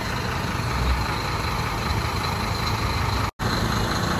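Scania K310IB coach's diesel engine idling steadily with a low, even drone. The sound cuts out for an instant about three seconds in.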